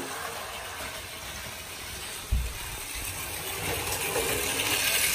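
Battery-powered toy Shinkansen trains running on plastic track: a steady whirring and rattling of the small motors and gears, growing louder as a train passes close. A single knock about two seconds in.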